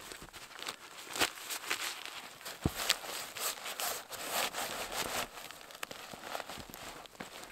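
Fabric rustling and crinkling as a grey fabric sack is rolled up and pushed down into a backpack, with irregular small scuffs and clicks.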